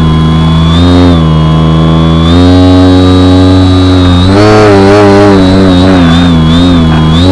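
Radio-controlled Edge 540T aerobatic plane's motor and propeller, recorded loud and close from a camera inside the cockpit. It drones at a steady pitch, steps up about two seconds in, then wavers quickly up and down with throttle changes during manoeuvres.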